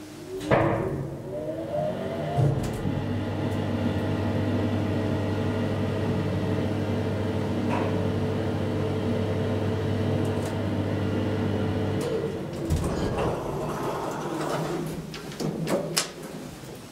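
Hydraulic elevator ride: the car door's motor whines up in pitch as the doors close, then the hydraulic pump motor hums steadily for about ten seconds while the car rises. It cuts off suddenly, a thump follows as the car stops, and the doors open with a few clicks and knocks.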